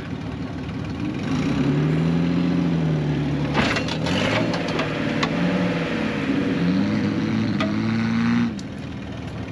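Jeep TJ engine revving up and down several times, with a few sharp cracks a little past three and a half seconds in. The revs drop away about eight and a half seconds in.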